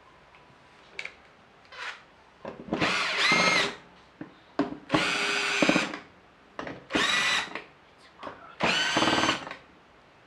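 Handheld power drill-driver whirring in four short bursts of about a second each as it backs out the four bottom-cover screws of an Intel NUC mini PC. Light clicks and handling noises come between the bursts.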